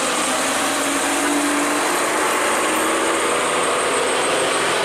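Engines of slow-moving traffic climbing a steep gravel grade under load: cars and a loaded light truck in low gear, giving a steady mixed engine hum with a faint engine whine that drifts a little in pitch.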